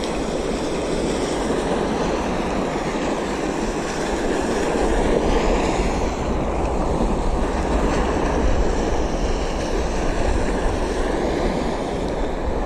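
Steady wind buffeting the microphone over the wash of rippling sea water.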